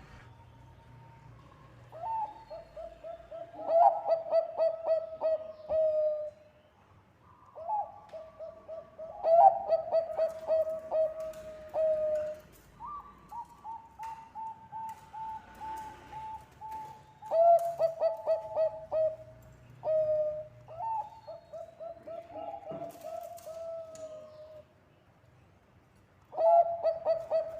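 Bangkok-type zebra dove (perkutut) singing: about five phrases of a few seconds each, every one a fast run of stuttering coo notes settling into a held, falling coo, with short pauses between them.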